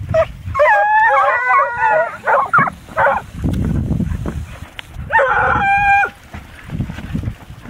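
A pack of PennMarydel foxhounds in full cry, several hounds baying at once in long overlapping calls. The cry comes in two spells, the second starting about five seconds in.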